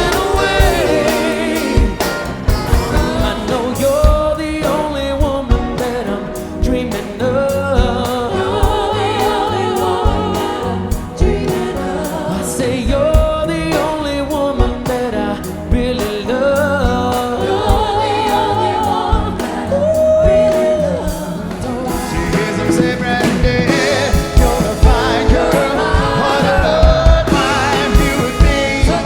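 Yacht-rock style soft rock song from a band, with sung lead vocal and vocal harmonies over a steady beat.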